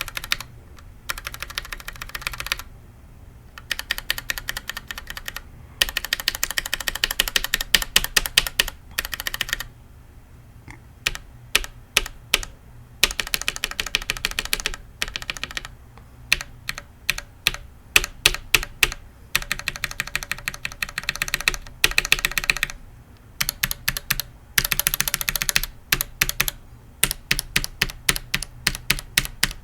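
Keys of a Think 6.5 mechanical keyboard with no dampening, fitted with Zealios, Retool MX Black, Gateron Yellow and Tealios switches, stock and lubed, being tapped hard. Sharp clacks come in runs, some slow and some in fast flurries, with short pauses between the runs.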